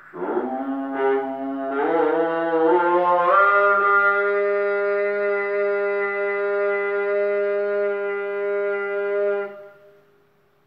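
A long, loud, brass-like horn blast that slides upward in steps for its first few seconds, then holds one steady pitch for about six seconds before cutting off.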